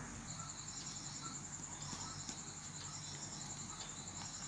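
Faint, steady, high-pitched pulsing trill of insects.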